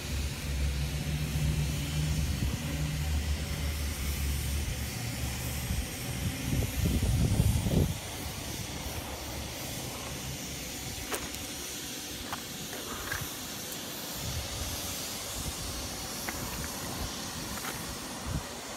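Yamaha XVS650 V-Star Classic's air-cooled V-twin idling, picking up briefly in a short throttle blip about six seconds in. About eight seconds in the engine sound drops away, leaving a steady hiss.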